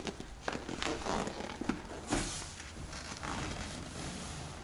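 Handling noise as a padded bed panel is packed into a camper trailer's side door: scattered light knocks and a louder rustle about two seconds in.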